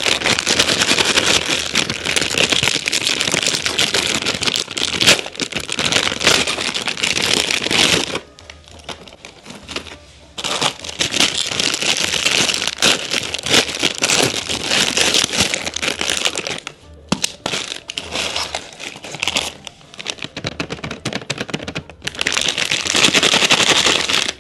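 Thin plastic packaging of ready-made mantu dough wrappers crinkling as it is torn open and handled, in spells of a few seconds with quieter pauses between.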